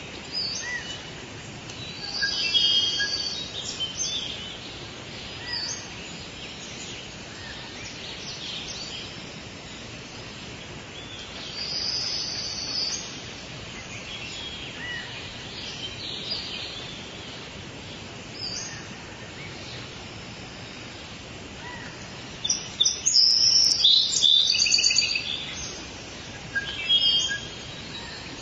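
Rainforest ambience: many birds calling and chirping over a steady background hiss. About three-quarters of the way through, a loud burst of rapid, repeated calls stands out.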